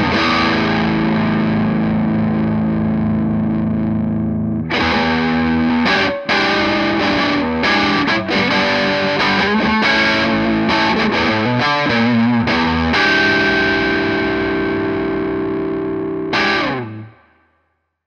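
Electric guitar through a Laney Cub 15-watt EL84 valve amp head, driven into overdrive by an MXR GT-OD pedal. A held distorted chord rings out, then a run of picked chords, another long held chord and a last strike, after which the sound stops near the end.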